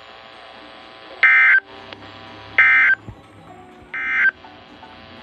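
Emergency Alert System end-of-message signal from a NOAA Weather Radio broadcast: three short, loud bursts of warbling SAME digital data tones, about 1.3 seconds apart, marking the end of the flood warning.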